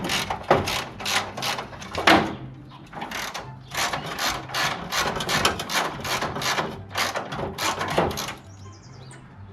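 Hand ratchet wrench clicking in repeated short strokes, about three a second, stopping near the end: bolts being worked loose to take a trunk latch off an old panel.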